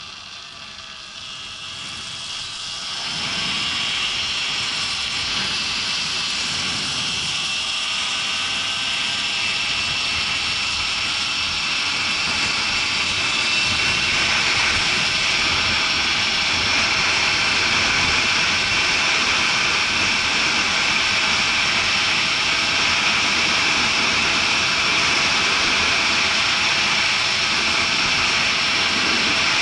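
A bike's motor whine and wind rushing past the camera as the following bike picks up speed about three seconds in. It then rides along steadily, with the whine rising a little about halfway through.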